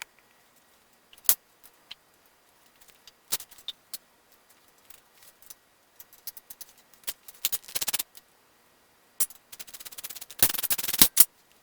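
Hand tools working on tractor steering-column hardware: scattered metal clinks and knocks, with two runs of rapid clicking like a socket ratchet, about seven seconds in and again near the end, the second louder.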